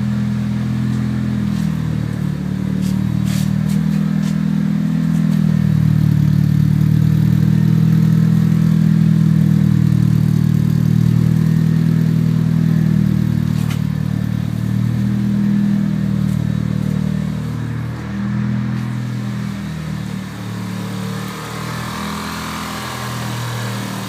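1995 Mitsubishi Eclipse GSX's turbocharged 2.0-litre four-cylinder running, louder through the middle and easing off later. It has a knock/tick that the previous owner takes for a spun rod bearing, though a bent valve is also suspected.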